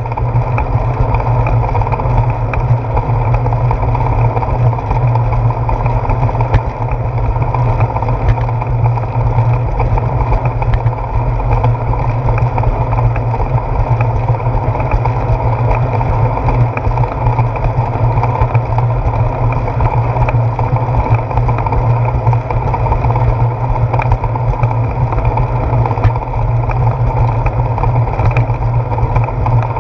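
Steady, loud, muffled rumble of a bicycle rolling along a concrete path, picked up by a camera mounted on its handlebar: tyre and road vibration mixed with wind noise, with no distinct separate events.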